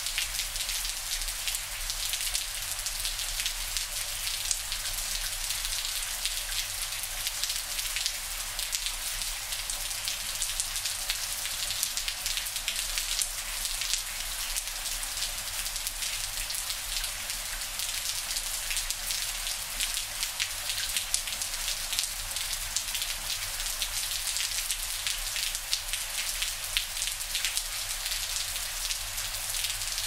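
Steady monsoon rain falling: a continuous hiss with many close, individual drop taps.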